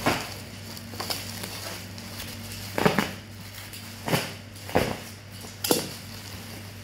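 Items and packaging being handled during unboxing: a few sharp knocks and clatters, about a second apart, over rustling, with a steady low hum underneath.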